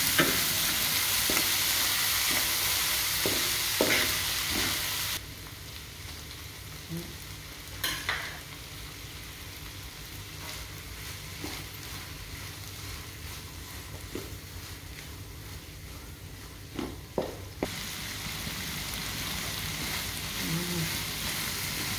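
Corn kernels and dried shrimp sizzling in a nonstick pan as a wooden spatula stirs and scrapes them, with short scraping strokes throughout. The sizzle drops sharply about five seconds in and picks up again near the end.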